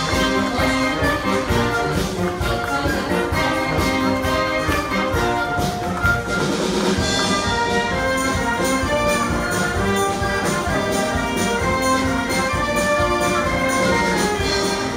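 Brass band playing, with held trumpet and trombone notes over a steady drum beat.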